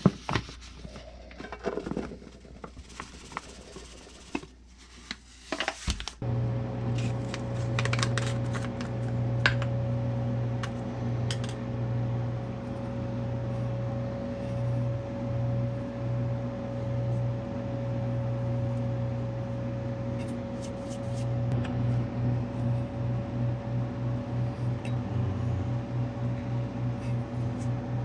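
Light clicks and rustling of containers being handled, then about six seconds in a steady machine hum starts suddenly and keeps going, pulsing evenly near the end.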